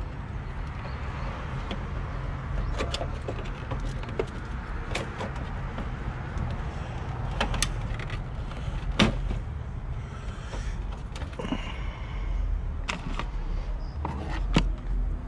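Scattered sharp plastic clicks and knocks as a car's headlight housing is handled and worked against its mounting, over a steady low rumble.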